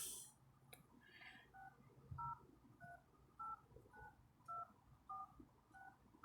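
Touch-tone phone keypad beeps as a number is dialed: about eight short two-note tones at a steady pace of nearly two a second, faint.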